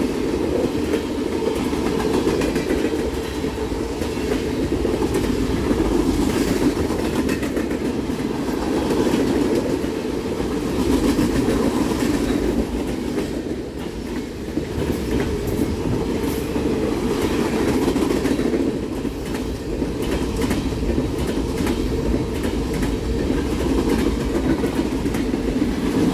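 Freight train of tank cars rolling steadily past at track level: a continuous rumble with the clickety-clack of steel wheels over the rails.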